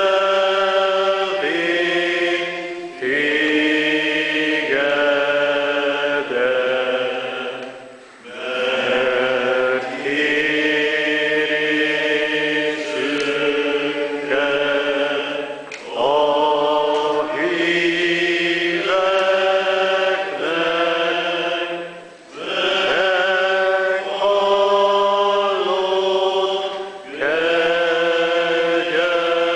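Congregation singing a slow hymn in Hungarian, holding long notes in lines of about five or six seconds with short breaks between the lines.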